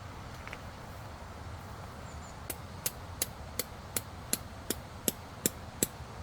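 About ten sharp, evenly spaced knocks, a little under three a second, starting about two and a half seconds in, over a steady rush of stream water.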